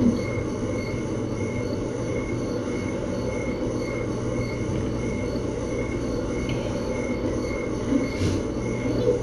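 Steady low mechanical hum and rumble, with a faint high tone pulsing about twice a second; a brief click about eight seconds in.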